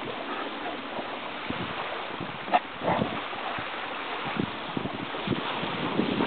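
Steady hiss of wind and surf, with scattered soft low thumps and one short dog bark about two and a half seconds in.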